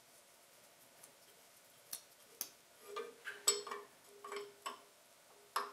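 Metal wrench clicking and clinking against an injection line fitting on a diesel injection pump, about eight irregular sharp ticks with a brief ring, starting about two seconds in.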